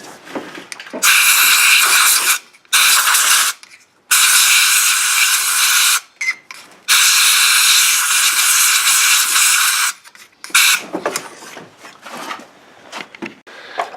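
Compressed air blowing in three long bursts of hiss and a short final puff, clearing dust from around the cam position sensors on an Ecotec engine before they are pulled.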